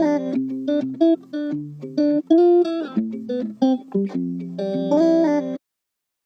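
Background music: plucked guitar melody, cutting off abruptly near the end into complete silence.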